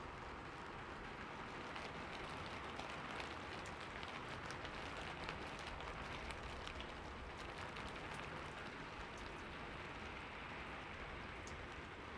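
Steady rainfall: an even hiss of rain with many separate drops pattering on a surface, thickest in the middle.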